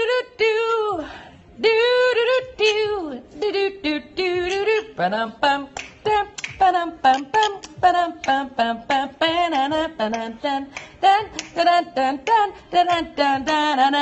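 Amazon parrot singing in a human-like voice: a few longer sliding notes at first, then from about four seconds in a quick run of short sung syllables, about three or four a second.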